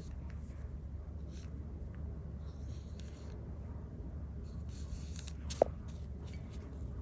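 Soft brush strokes on sized xuan paper, with faint intermittent swishes over a steady low hum. One sharp tap comes a little past halfway.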